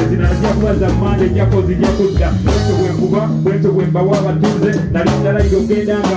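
Live band playing a steady groove: drum kit hits over a sustained bass line, with some vocal lines on top.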